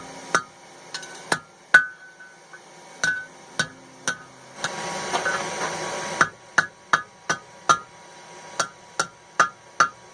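Hand hammer striking hot mild steel over an anvil horn, irregular blows roughly two or three a second, each with a short metallic ring, as the end of a nail header is bent into a hook. A stretch of rushing noise about halfway through interrupts the blows.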